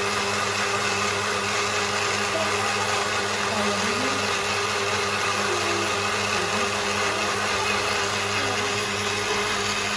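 Small personal bullet blender running steadily at a constant pitch, puréeing strawberries with sugar into a smooth red juice base.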